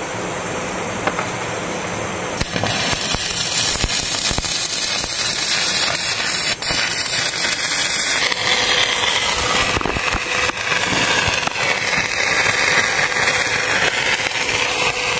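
Stick welding on steel beams: the electrode's arc crackling and sizzling continuously.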